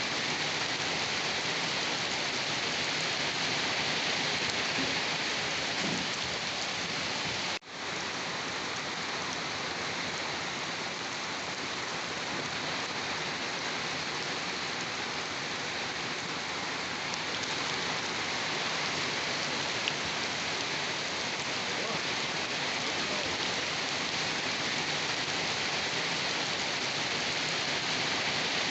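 Steady rain falling, an even hiss of countless drops. About seven and a half seconds in, the sound cuts out for an instant, like a splice in a looped recording, then carries on unchanged.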